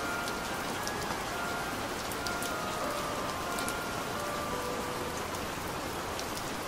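Steady rain sound with scattered raindrop ticks, under faint, slow held notes of soft background music.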